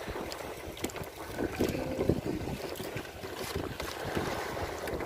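Wind buffeting the microphone in uneven gusts, with water sloshing against a small boat's hull on choppy sea.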